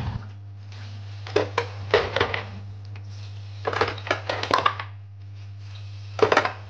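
Plates clattering and knocking as they are set into a plastic dish drying rack, in three short bursts of clinks. A steady low hum runs underneath.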